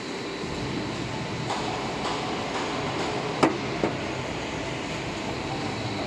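TR80 floor deck roll forming machine running, steel deck sheet feeding through its forming rolls with a steady mechanical noise. Two sharp knocks come a little past halfway, about half a second apart.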